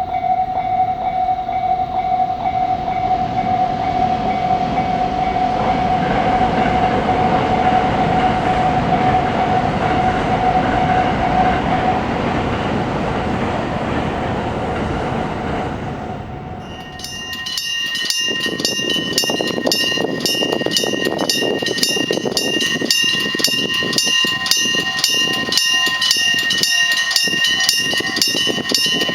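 A train passing close by, a loud rush of wheel and rail noise with a steady whine under it. A little over halfway through, the sound changes to an old-style electric bell level-crossing alarm: a metal bell struck rapidly and evenly, ringing on.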